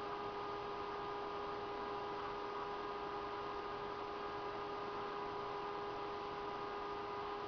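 Steady electrical hum from a running Pentium MMX desktop PC, with several steady whining tones held over an even hiss and no clicks or changes.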